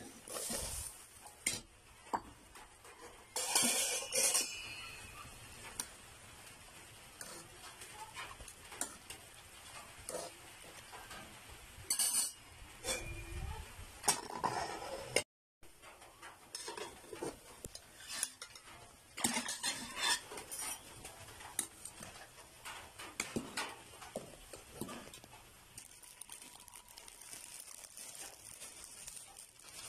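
Cookware clatter at an aluminium cooking pot: a plate and utensils knocking and clinking against the pot as vegetable slices are tipped in and the lid is handled, with scattered clinks and scrapes. Near the end a plastic bag crinkles as noodles are poured in.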